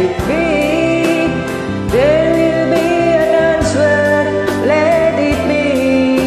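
Karaoke backing track with a steady beat of about two strokes a second, under a woman singing long, gliding notes.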